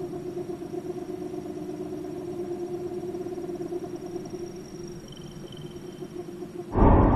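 A steady, slightly fluttering humming drone, then a sudden loud boom near the end.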